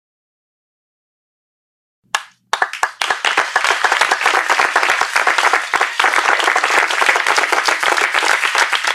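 Audience applause. After about two seconds of silence, a few scattered claps grow into dense crowd clapping, which cuts off abruptly at the end.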